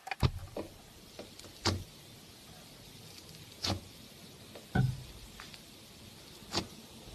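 Slime being squeezed and poked by hand, giving scattered sharp sticky pops and clicks, about one every second or two.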